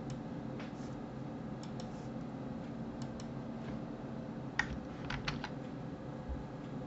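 Computer mouse and keyboard clicks: a dozen or so short, sharp clicks at irregular intervals, the loudest a little past four and a half seconds in, over a steady low hum.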